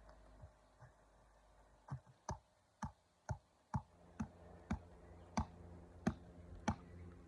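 A hammer striking a tree's wood in a steady series of sharp blows, about two a second, starting about two seconds in.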